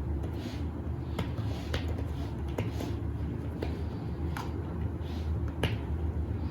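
A dozen or so light, irregular clicks and taps with a few soft swishes, over a steady low hum.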